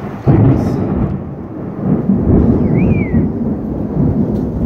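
Thunder from a nearby lightning strike: a sudden loud crack about a quarter second in, followed by a long low rolling rumble.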